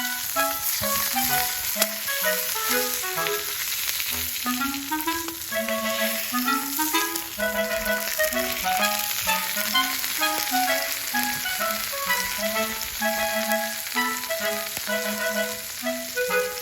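Background music with a clarinet-like melody, over the steady sizzle of food frying on an iron griddle.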